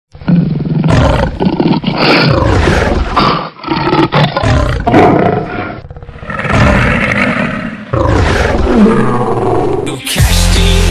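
Loud animal roars and growls, several long calls in a row with short breaks between them.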